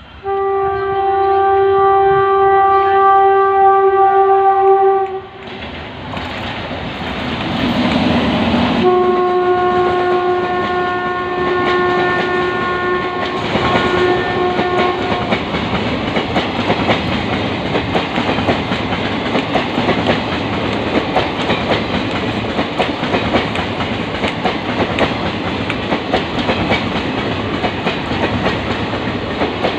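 Indian Railways WAP-7 electric locomotive sounding two long horn blasts as the express passes at speed, the second blast a little lower in pitch. The coaches then rush past with a steady rushing noise and a rapid clatter of wheels over the rail joints.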